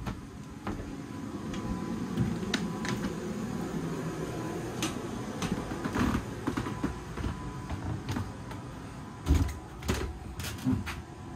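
Footsteps and handling knocks inside a boat's wooden cabin interior: scattered clicks and light knocks over a low rumble, with three heavier thumps near the end.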